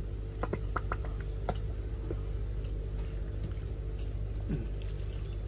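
Plastic squeeze bottle of red sauce being squeezed, giving a quick run of wet sputtering squirts about half a second to a second and a half in, with a few more later, over a steady low hum.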